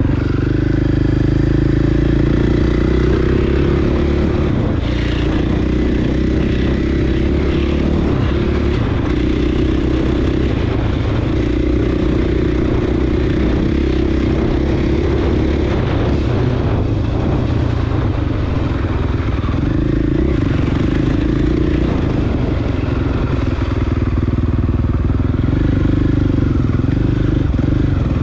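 Dirt bike engine running under way on a trail, its note rising and falling with the throttle.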